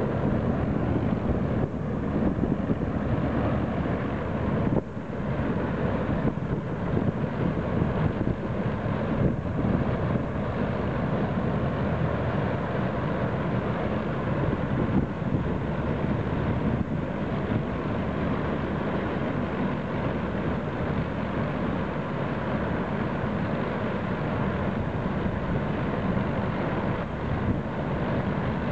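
Vintage pull-type combine harvester and the tractor towing it running steadily while cutting and threshing wheat, with a continuous mechanical clatter and engine noise.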